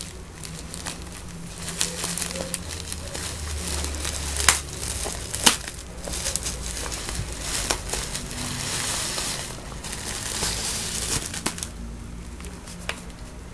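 Plastic bubble wrap crinkling and rustling as it is handled and pulled off a box, with a few sharp clicks among it. The crinkling dies down near the end.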